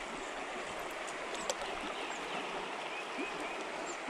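Steady rush of stream water flowing over riffles.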